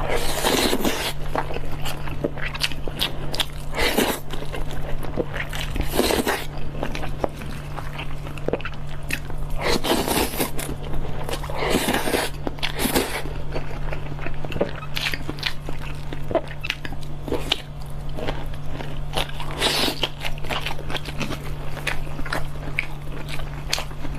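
Close-miked eating of steamed rice noodle rolls (cheung fun): irregular chewing and wet mouth sounds, with longer slurping bursts every few seconds. A steady low hum runs underneath.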